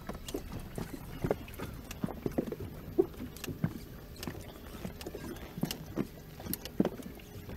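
Irregular knocks, taps and creaks from the boat and fishing gear as an angler fights a hooked amberjack on a bent jig rod, a couple of sharp knocks each second, the loudest about three seconds in.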